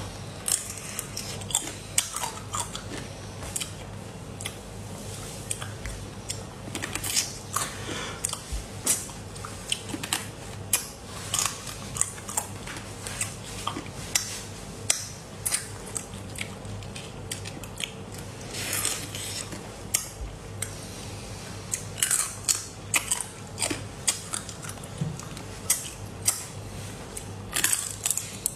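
Close-up eating of cooked crab claws: shells cracking and crunching between the teeth, with chewing and sucking at the meat, in many short sharp crackles one after another.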